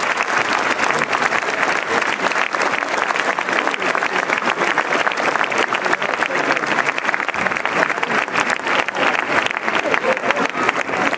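Audience applauding steadily, many hands clapping at once, with voices from the crowd mixed in.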